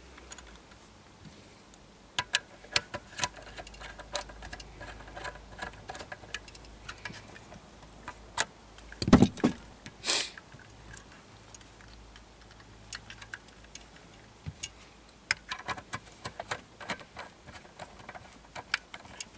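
Small metallic clicks and ticks as cable ends and a screwdriver are worked at the terminal screws of a car-audio capacitor, with two louder knocks about halfway through.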